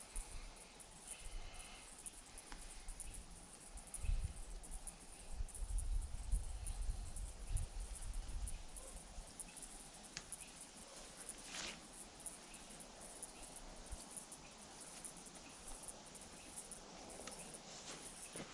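Insects chirring steadily at a high pitch, with faint knocks, low bumps and a brief rustle from the tent being set up, most of the bumps between about 4 and 8 seconds in.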